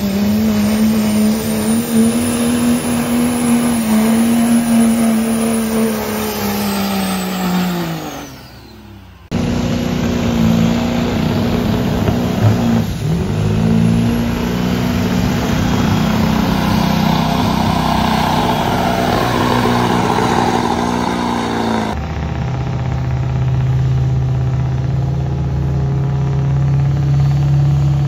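Diesel pickup trucks pulling a sled at full throttle, engines running hard under load. About eight seconds in, one engine falls in pitch and dies away. The sound then cuts abruptly to another pull, and again about twenty-two seconds in to a steadier, lower engine note that creeps up near the end.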